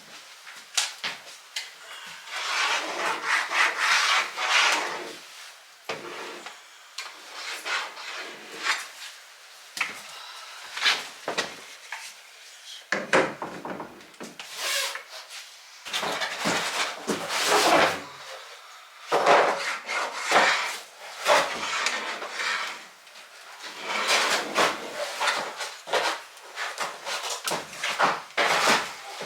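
Irregular scraping and rubbing with sharp knocks, in several bursts lasting a few seconds each, like wooden objects being handled and slid about.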